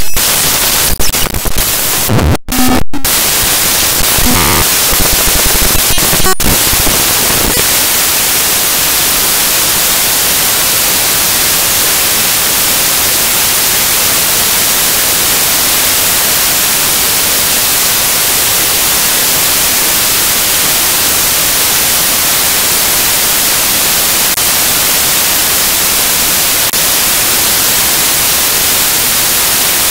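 Loud, steady static hiss filling the sound track, like a faulty or lost audio feed. In the first few seconds there are crackles, faint bits of music and two brief cut-outs.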